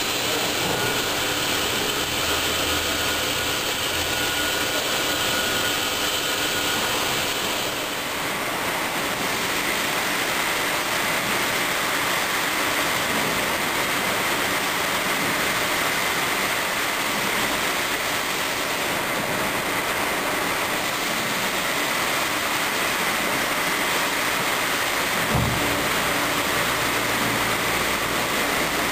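Höfler Rapid 1500 CNC gear grinder running: the grinding wheel works the teeth of a large gear under a flood of coolant, giving a steady, loud rushing noise. A faint steady high whine comes in about a third of the way through. There is a single low thump near the end.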